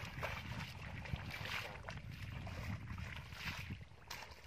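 Footsteps squelching and splashing through mud and shallow water, a few irregular steps, over a steady low rumble of wind on the microphone.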